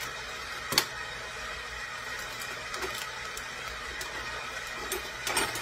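Kitchen handling noise: one sharp knock about a second in, then a few light taps and knocks near the end, over a steady low background hum.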